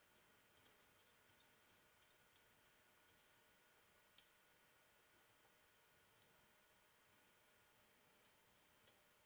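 Near silence with faint, scattered metallic clicks as a hex key turns and seats the screws of an AK gas tube cover. The sharpest click comes near the end.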